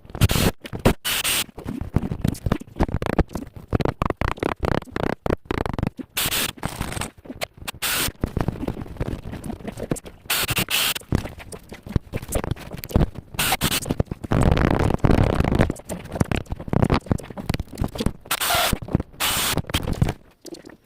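Irregular scraping, scratching and knocking from hands-on work under a sink, with short bursts of hiss and a denser, heavier stretch of scraping about two thirds of the way through.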